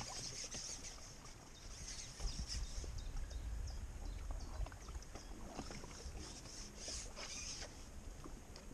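Small waves lapping against the bank under a steady low rumble of wind on the microphone, with light scattered ticks and splashes throughout.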